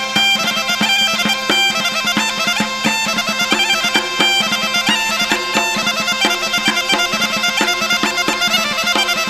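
Background instrumental music: a quick melody over a steady low drone.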